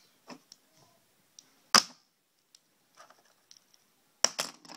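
Sharp plastic clicks from a small Zoobles toy figure being handled: one loud click about two seconds in, fainter ticks before it, and two more clicks close together near the end.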